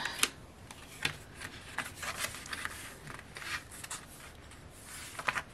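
Paper rustling and short plastic scrapes as a sticker sheet is pulled out of a plastic CD jewel case and the album booklet is handled and opened; a handful of brief scrapes spread out, with a sharper one just after the start and another near the end.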